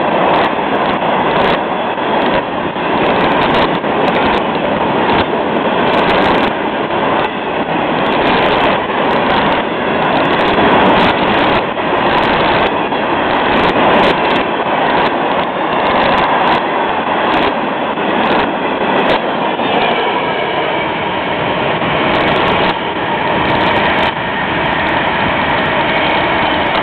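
Freight train's open-top hopper cars rolling past at close range: a steady rumble of steel wheels on rail, broken by frequent sharp clicks as the wheels cross rail joints.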